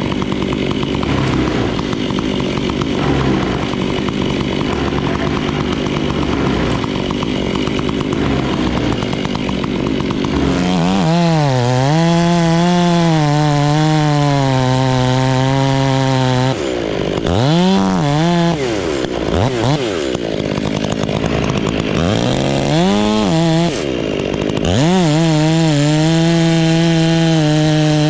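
Two-stroke chainsaw running hard, as if cutting, for the first ten seconds or so. From about ten seconds in its engine note comes through clearly and rises and falls as the throttle is worked, dropping briefly several times.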